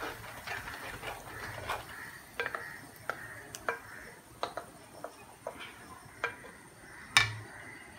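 Wooden spatula scraping thick ground tomato-and-onion gravy paste out of a bowl into a non-stick kadai. Irregular taps and soft wet scrapes come every half second or so, with one sharper knock about seven seconds in.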